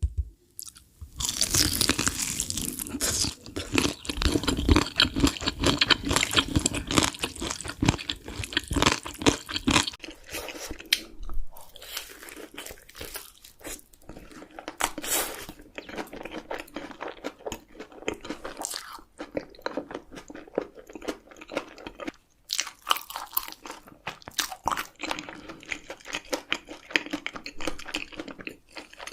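Close-miked crunchy chewing and biting of chicken with cheese sauce. A second of near quiet gives way to dense, loud crunching for several seconds, then lighter chewing broken by sharp crisp bites.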